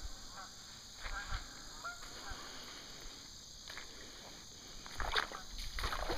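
Geese honking as they fly in, a string of short calls in the first two seconds or so that then fade. Near the end, louder scuffing and crunching of footsteps on the gravel creek bed.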